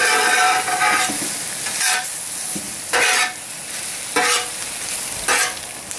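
Metal spatula scraping and turning a sizzling egg-and-vegetable scramble on the steel top of a Blackstone 17-inch propane griddle. The strokes come about once a second over a steady frying sizzle.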